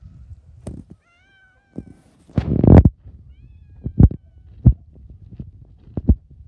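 An orange cat meows once, a wavering call lasting about a second, starting about a second in. Just after it comes a loud, brief rush of noise, and then several sharp thumps spaced roughly a second apart, like footsteps on the path.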